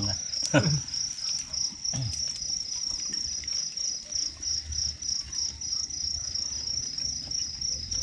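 Crickets calling, a steady high trill in even pulses. A short voice cuts in briefly about half a second in.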